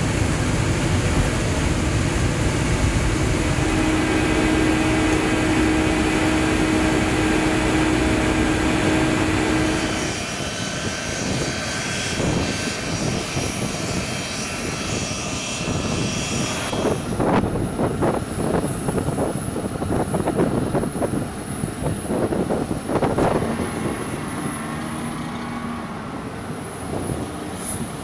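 C-17 Globemaster III jet engines (Pratt & Whitney F117 turbofans) running. For about the first ten seconds there is a dense, steady rumble from inside the cockpit on the runway. After a sudden change, the engines are heard from outside on the ground as an uneven rumble, which shifts again to a quieter sound with a thin high whine a few seconds later.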